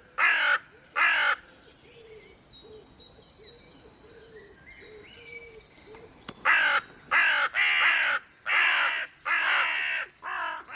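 Crow cawing: two caws, then a pause of several seconds with faint chirping of other birds behind, then a run of about six caws in quick succession.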